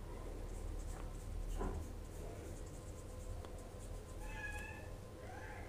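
Faint paintbrush strokes on paper over a low steady hum. Near the end come two short pitched calls, the second rising and falling.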